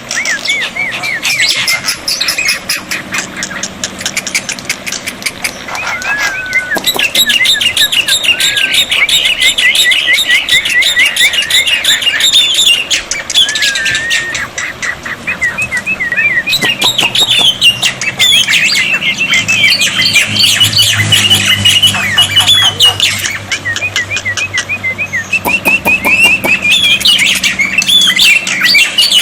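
Black-winged myna (jalak putih) singing: a continuous run of rapid chattering whistles, trills and squawks.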